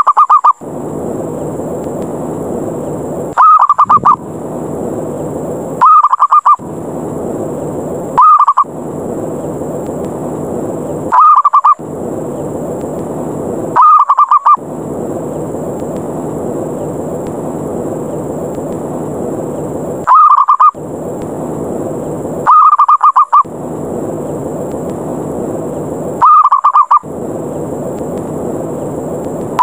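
Zebra dove's short rolling 'kerr' call, the 'ngerot' call used as a fight challenge to lure other doves, repeated about every two to three seconds, with one longer pause midway. Each call is a loud, fast-pulsed burr over a steady hiss.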